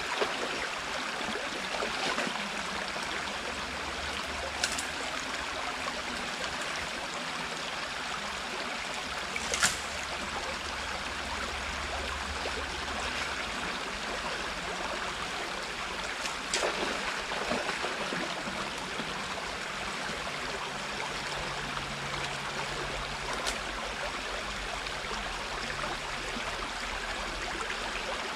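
Water rushing steadily through a breached beaver dam. A few sharp knocks stand out, the loudest about ten seconds in.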